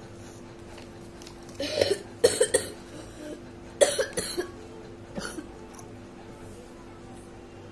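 A person coughing in short fits: a cough about two seconds in followed quickly by two or three more, another burst of coughs around four seconds in, and a softer one about a second later.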